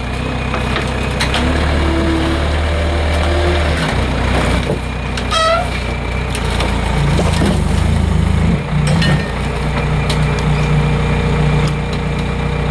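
Skid steer engine running under load while it pushes on a pickup's frame, its note shifting about four seconds in and again about seven seconds in, with scattered knocks and creaks from the work.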